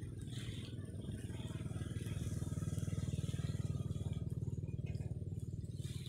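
An engine running with a fast, even low throb, growing louder toward the middle and fading again.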